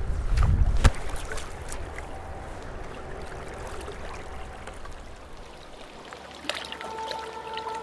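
River water running steadily, with a low rumble in the first second and a single sharp click about a second in. Music comes in near the end.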